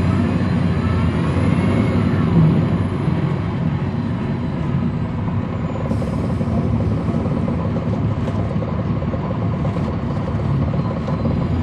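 Cummins ISL9 diesel engine of a 2010 NABI 40-SFW transit bus running under way, heard from the rear of the bus cabin, with a whine that rises and falls in the first few seconds. A brief hiss of air comes about six seconds in.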